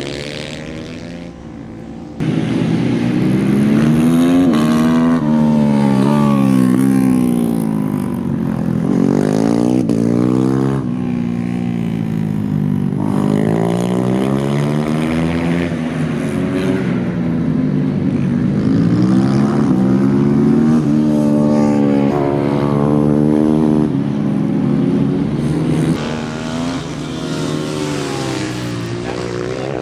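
Supermoto race motorcycles running hard, engines repeatedly revving up and falling back as the riders accelerate and brake through the corners. The sound jumps abruptly louder about two seconds in and drops back somewhat near the end.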